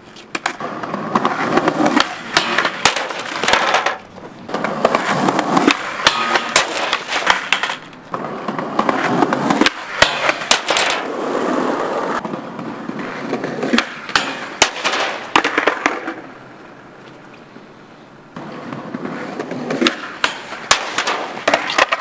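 Skateboard wheels rolling over pavement, broken again and again by sharp clacks and slaps of the board popping, landing and hitting the ground. The rolling stops and starts a few times and goes quieter for a couple of seconds near the end.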